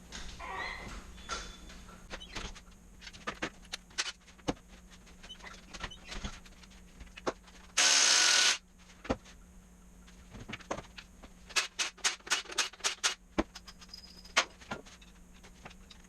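Metal tools clinking and knocking as someone rummages through a toolbox for a tool, with a quick run of rattling clicks near the end. About halfway through, a loud noisy rush lasts under a second.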